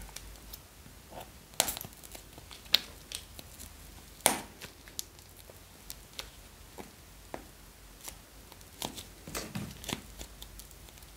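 Plastic wrapper of a small pack of soft yellow clay crinkling and tearing open with a few sharp crackles, then the soft clay being pulled and squeezed in the fingers with small sticky clicks.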